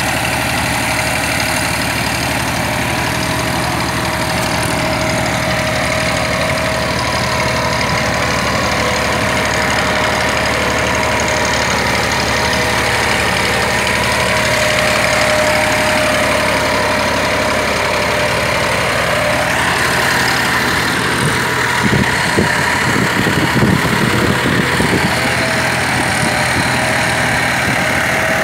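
Massey Ferguson 9500 tractor's diesel engine running steadily as it pulls a duck-foot tiller through the field. A few irregular knocks and rattles come through about three quarters of the way in.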